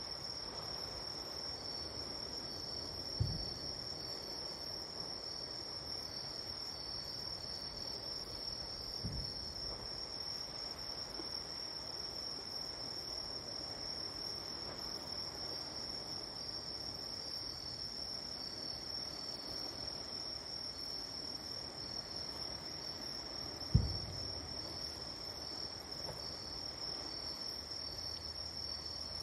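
Night insects trilling steadily, with a second insect call pulsing just below it. Three dull thumps of distant fireworks bursts break in about 3 s, 9 s and 24 s in, the last the loudest.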